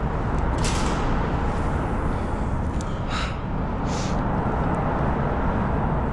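Steady low noise of traffic crossing the road bridge overhead, with three short hissing sounds within the first four seconds.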